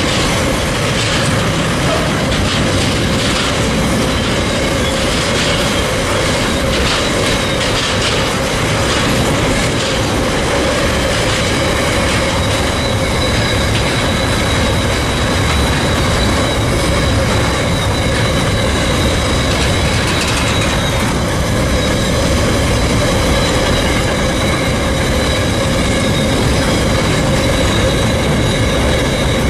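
Steel wheels of a long rake of mineral sands container wagons rolling past at a steady pace, with a continuous rumble and a steady high wheel squeal. Wheel clacks over rail joints are most frequent in the first third.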